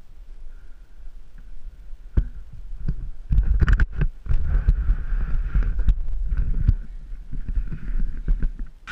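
GoPro camera being handled close to its microphone as it is taken off its mount and turned around: a few sharp knocks about two seconds in, then rubbing and scraping in two spells.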